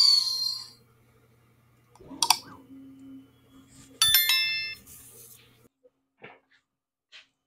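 Subscribe-animation sound effects: a short click about two seconds in, then a bright bell ding with several clear tones at about four seconds. A low steady hum runs underneath and cuts off suddenly more than halfway through.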